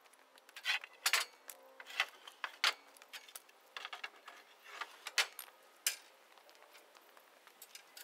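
Steel ramp heads on wooden plank ramps clanking and clattering against a trailer's steel gate as the ramps are unhooked and lifted off, a scattered run of sharp metal clinks and knocks that ends about six seconds in.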